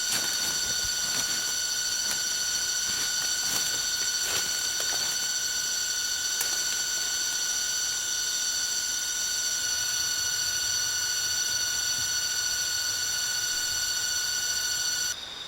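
Steady, high-pitched insect drone of cicadas in the forest, with a few sharp clicks or snaps in the first seconds. It cuts off abruptly near the end, leaving a fainter chirping of crickets.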